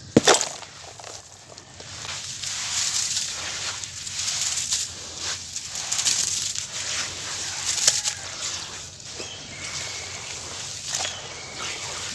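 Sand-cement chunks crushed by hand, with water in the mix: one sharp crack just after the start, then a long stretch of gritty crunching and crumbling with scattered small clicks.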